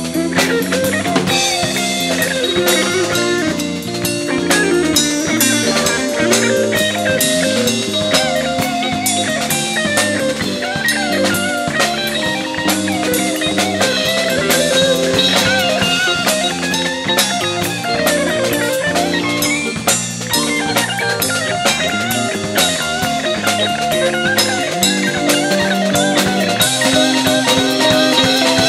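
Live jazz-funk fusion band playing an instrumental passage, with a drum kit keeping a busy beat under guitar.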